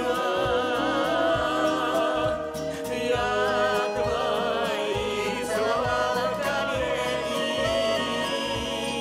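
A song playing: a voice holding long notes with vibrato over a band accompaniment with a steady beat.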